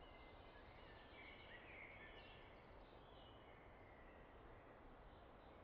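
Near silence: faint outdoor background hiss with a few short, faint high chirps, mostly in the first half.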